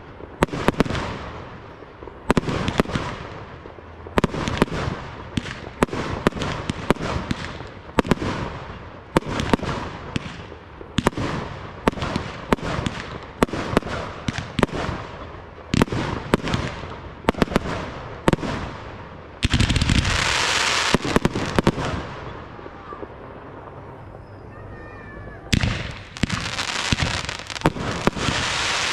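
Aerial fireworks display: shells bursting in a steady series of sharp bangs a second or two apart, each trailing off in an echo. About two-thirds through comes a loud continuous hiss for a couple of seconds, then a quieter stretch, and a fresh rapid volley of bangs near the end.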